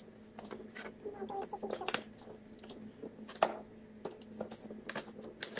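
Fingernails picking and scratching at packing tape on a cardboard box: scattered small clicks and rustles, with a sharper tick about three and a half seconds in.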